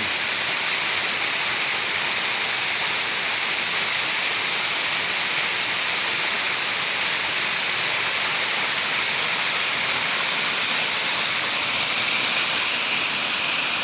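Waterfall rushing: a steady, even roar of falling water with no break or change.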